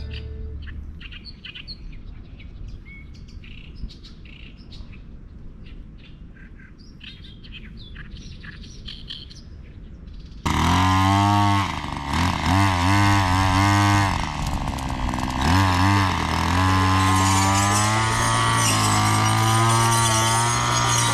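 Birds chirping for about ten seconds. Then a brush cutter's small engine comes in suddenly and loud, revving up and down a few times before running steady at high speed as its new tipped saw blade cuts weeds.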